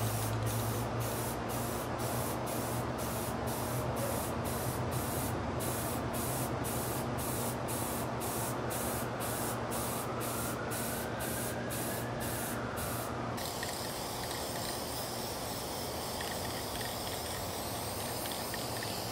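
Aerosol spray-paint can hissing in short bursts, about two a second, as it is swept over hanging metal computer-case parts. About 13 seconds in it turns to a steadier, continuous spray hiss.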